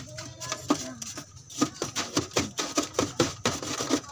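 Quick, uneven knocks and scrapes, about two or three a second, from hands working at an ice scramble vendor's cart, as a serving is made up.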